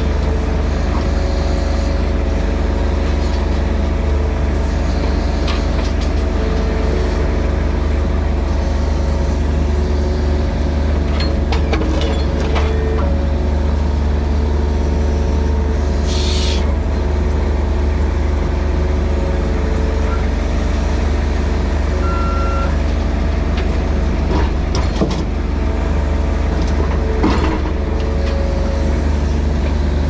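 Mini excavator's diesel engine running steadily, with a few scattered knocks and a short hiss about sixteen seconds in.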